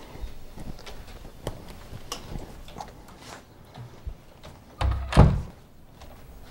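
A heavy thud, doubled, about five seconds in, after scattered soft clicks and knocks.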